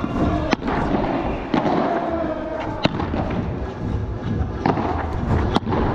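Padel rally: the ball struck by solid padel rackets and bouncing off the court, about five sharp pops at irregular intervals roughly a second apart.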